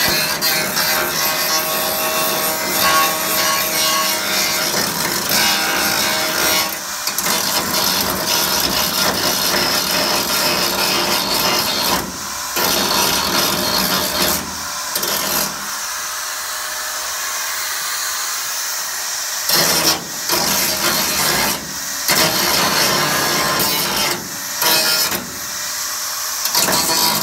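Oxy-acetylene torch welding on a vehicle's metal body: a steady, rough rushing noise. It drops back several times, for the longest stretch about two-thirds of the way through.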